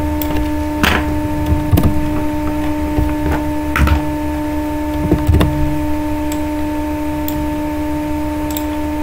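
Steady electrical hum on the recording, with a string of sharp clicks in the first six seconds and a few fainter ones after.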